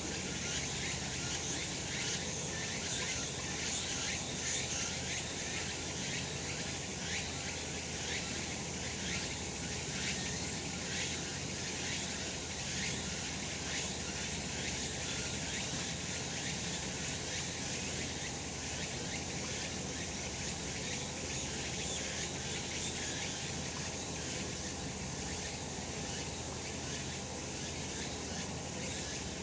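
A chorus of cicadas calling steadily: a dense, high hiss with a fine, rapid pulse.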